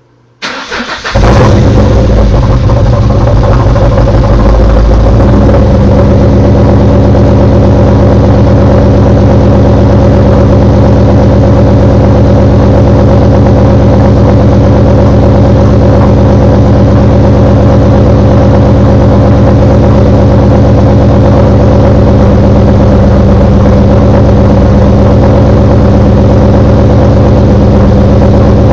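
Supercharged car engine fitted with a CMS stage 2 blower cam being cranked over and started. It catches about a second in, runs fast at first, then settles into a steady idle a few seconds later, with a loud knocking noise that appeared right after the cam install.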